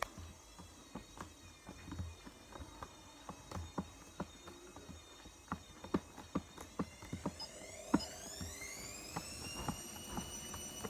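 Toy dishwasher running its electronic wash-cycle sound effect: a string of irregular clicks over a faint high tone, then, about seven seconds in, a whine that rises in pitch and levels off.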